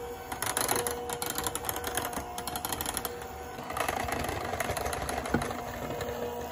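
KitchenAid electric hand mixer running at low speed, its beaters whipping heavy cream with condensed milk in a glass bowl: a steady motor hum with a rapid clatter. From about the middle on, a silicone spatula scrapes the bowl's sides alongside the beaters.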